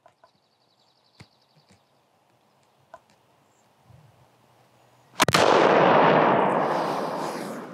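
.577 Snider carbine firing one 130-year-old black-powder cartridge about five seconds in: a single sharp shot whose report rolls on loudly and dies away over the next two seconds or so.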